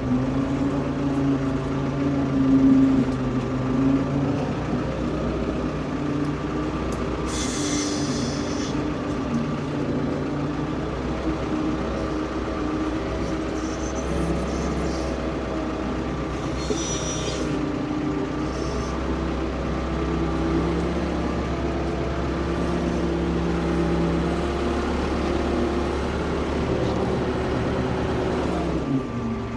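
Ford P-42 excavator's engine running steadily as the machine is driven. There are two short hisses, one about seven seconds in and another about ten seconds later, and near the end the engine note falls away.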